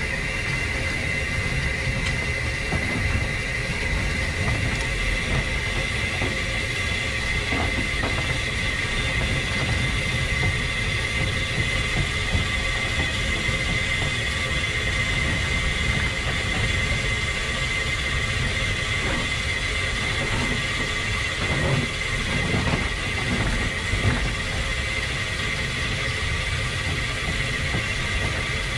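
1915 Orenstein & Koppel steam tram locomotive running slowly along the track: a steady, uneven rumble of wheels on rail, with a steady high-pitched tone on top and a few faint knocks.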